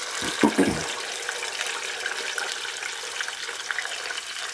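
Canned whole peeled plum tomatoes and their juice going into a pot of hot oil: a few plops in the first second, then a steady crackling sizzle of wet tomato in the oil.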